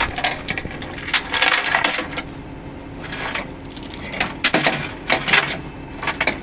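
Steel tie-down chains and chain binders being unhooked, clinking and clattering against the steel diamond-plate deck of a flatbed tow truck in quick, irregular bursts.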